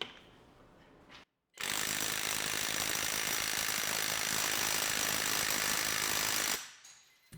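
Cordless mid-torque impact wrench hammering continuously in forward on a torque-test rig for about five seconds, starting and stopping abruptly.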